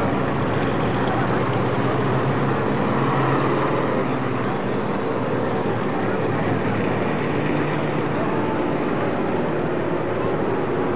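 Several dirt-track stock car engines running steadily as the cars circle the track in a group, passing one after another.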